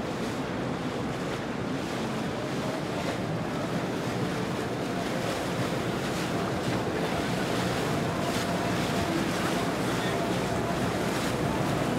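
Steady wash of water and wind noise, with a boat's engine running low underneath, growing slightly louder.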